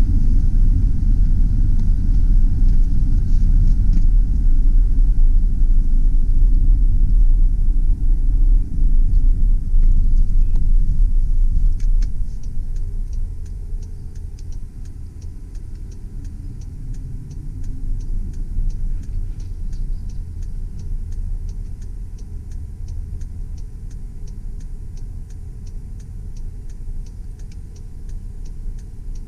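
Cabin sound of a 2003 GMC Sierra 2500HD's 6.0-litre V8 truck under way: a loud low rumble of engine and road, which drops off about twelve seconds in as the truck slows. From then on a turn signal clicks steadily, roughly twice a second, over the quieter engine.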